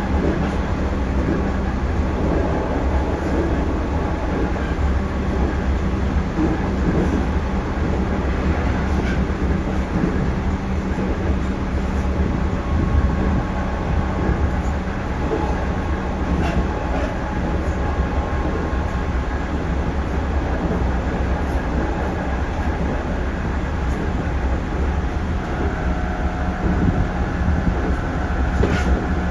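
311 series electric multiple unit running along the line, heard from inside the car: a steady rolling rumble and hum of wheels and motors, with faint clicks over the rails. Near the end, steady whining tones from the motors come in.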